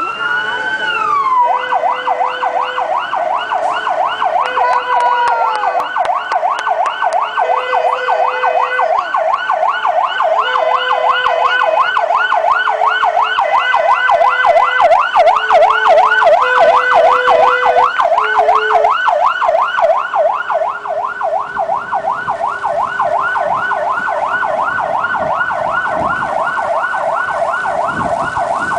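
Fire engine siren, starting with a slow wail that rises and falls, then switching about a second and a half in to a fast yelp of about four sweeps a second that runs on steadily. Short steady horn blasts sound over it again and again in the first two-thirds.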